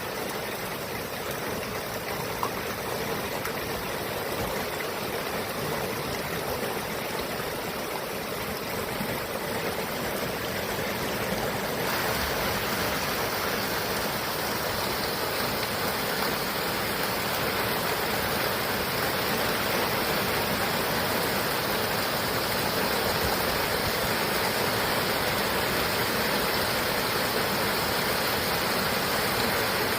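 Heavy rain pouring steadily, growing heavier about twelve seconds in.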